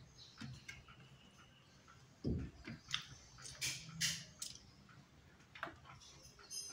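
Close-up eating sounds of a person eating rice by hand: chewing and small wet mouth clicks, with fingers working the rice on the plate. Scattered sharp ticks run through, with a dull knock a little over two seconds in.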